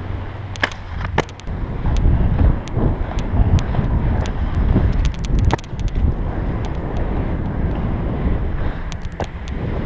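Aggressive inline skate wheels rolling over asphalt and concrete: a steady rumble that grows louder about two seconds in, with wind buffeting the microphone and scattered sharp clicks.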